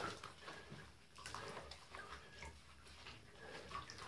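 Faint sounds of a wet cat being bathed in a bathtub: small splashes and handling noises in shallow water, with a few brief, quiet cat noises.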